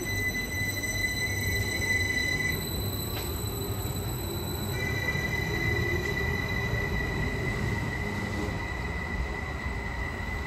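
A Class 74 Stadler FLIRT electric multiple unit accelerating away from the platform. Steady high whines sit over a low rumble, and a fainter whine rises in pitch through the first few seconds.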